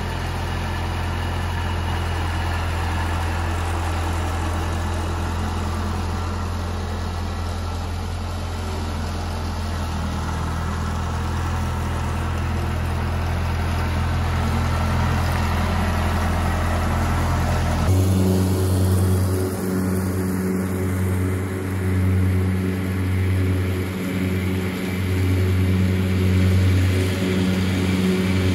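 Kubota F3680 mower's diesel engine running steadily as the machine pulls out and drives closer. About two-thirds of the way through, the sound cuts abruptly to a different, unevenly rising and falling engine note as the mower works across leaf-covered ground.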